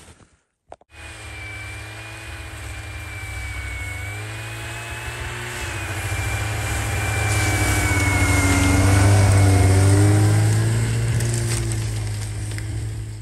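A motor vehicle's engine running, with a steady low rumble and a slowly wavering pitch, growing louder toward the middle and then fading away.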